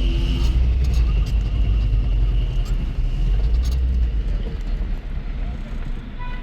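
A car running with a steady low rumble of engine and road noise, which eases off about four seconds in.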